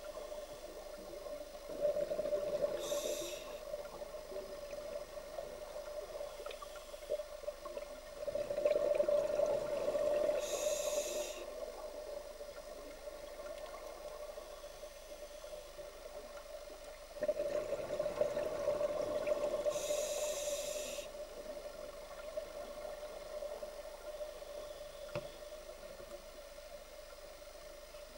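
A scuba diver breathing through a regulator underwater: three breaths about eight seconds apart, each a rush of exhaled bubbles that ends in a short high hiss. A steady low hum runs underneath.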